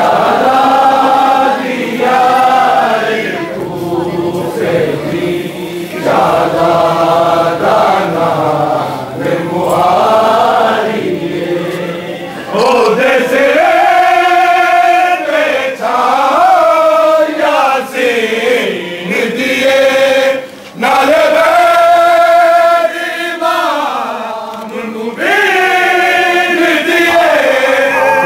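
Male voices chanting a noha, a mourning lament, in long melodic phrases that rise and fall, each a few seconds long with brief breaks between.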